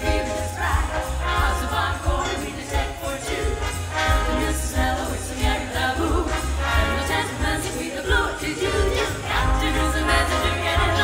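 Big band playing live, heard as a direct feed from the mixing desk: dense ensemble over a steady bass, with bell-like jingling on top.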